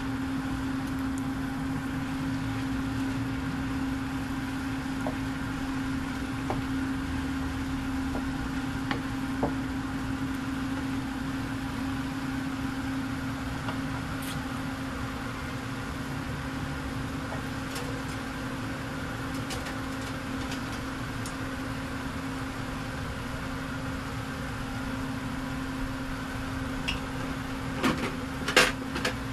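Steady electric motor hum with a low drone, as of a kitchen exhaust fan, over a wok of vegetables cooking. Near the end, a few sharp knocks of the wooden spatula against the wok.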